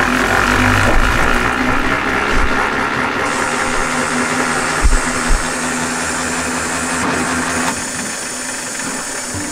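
Motor-driven radial honey extractor running, spinning honey frames with a steady mechanical whir and a constant hum. A high hiss joins about three seconds in, and the sound shifts and drops a little near the end.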